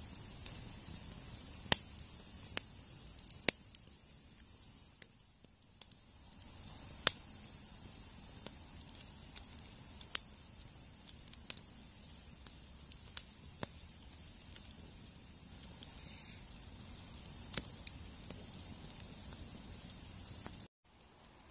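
Small wood campfire crackling, with scattered sharp pops over a steady hiss and a thin high whistle. The sound cuts off suddenly near the end.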